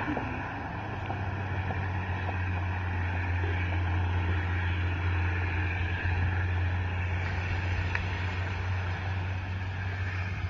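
Steady low engine hum that holds unchanged throughout, with wind buffeting the microphone.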